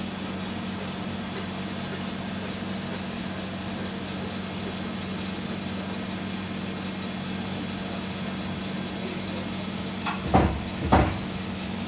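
CNC lathe running with a steady hum and a faint high whine that stops about nine seconds in, followed by two loud knocks in quick succession.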